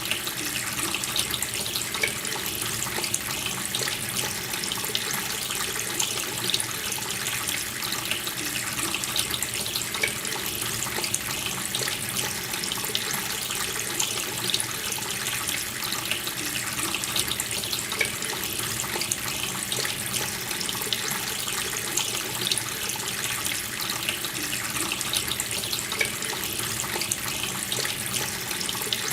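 Water running steadily from a tap into a sink, a continuous splashing flow with no change.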